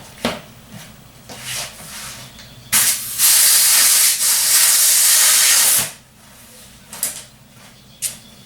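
Air hissing steadily into a dirt bike inner tube for about three seconds as it is inflated a little, starting a few seconds in and cutting off sharply. A few faint handling clicks come before and after.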